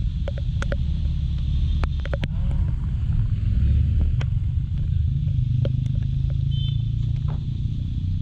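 Kymco Like 125 scooter on the move on a wet road: a steady low rumble of engine, wind and road noise, with scattered sharp ticks over it.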